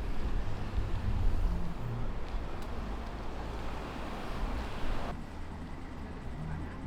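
Outdoor ambience: a steady low rumble, like a passing vehicle's engine, with wind noise on the microphone. The sound changes abruptly about five seconds in, becoming duller and quieter.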